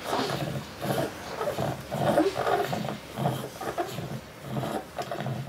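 A toddler with GM2 gangliosidosis breathing noisily, with a rough, groaning sound on each breath, about two a second. This is typical of secretions in his airway.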